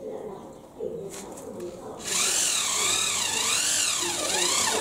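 Electric hand drill running for nearly three seconds from about two seconds in, its motor whine wavering up and down in pitch.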